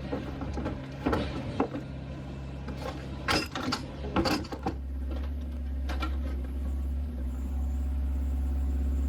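Scattered clicks and knocks of gear being handled, then a steady low vehicle engine hum that sets in about halfway through and slowly grows a little louder.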